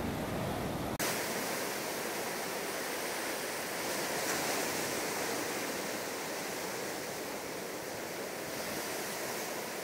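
Ocean surf washing onto a sandy beach, a steady hiss. About a second in, the low rumble drops away abruptly.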